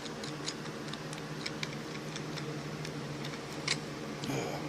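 Small plastic clicks and ticks as a generic action camera's plastic mount is screwed onto its waterproof case, with one louder click about three-quarters through, over a steady low hum.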